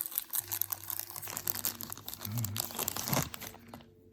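Packaging crinkling and rustling as a watch is unwrapped by hand, a dense run of small crackles that stops just before the end.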